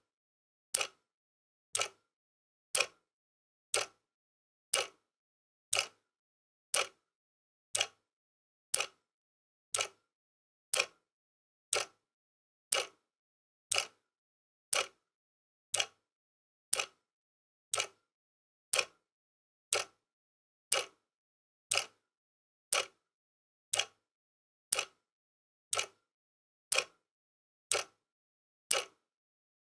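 Quartz wall clock ticking steadily, one sharp tick each second.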